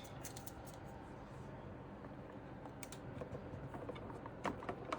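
Faint, scattered small plastic clicks and handling noises from a RAM stick being lined up with the motherboard's memory slot, with two sharper clicks near the end.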